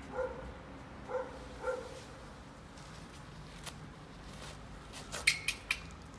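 Golden retriever puppy giving three short high whines in the first two seconds, then chewing and tearing a paper towel, with a burst of sharp paper crackles about five seconds in, the loudest sound.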